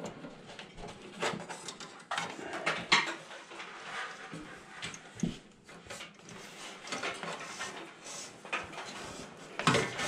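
Network cables being handled and pushed through a patch panel in a metal network rack: rustling, with irregular small clicks and knocks of cable and plastic against the rack, the sharpest about three seconds in.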